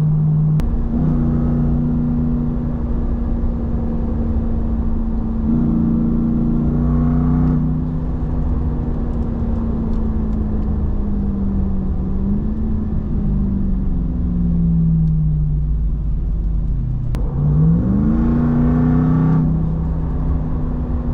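Ram TRX's 6.2-litre supercharged V8 and its exhaust under throttle, over a deep rumble. The engine note climbs in pitch about a second in, again around six seconds in and once more near the end, easing back down in between.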